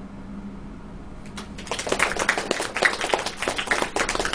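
A small audience clapping, starting about a second in, right after a poem is finished.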